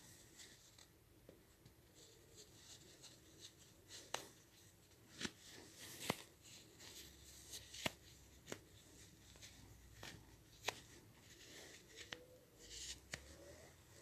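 Faint handling noises: scattered sharp clicks, about eight of them, over soft, uneven rustling.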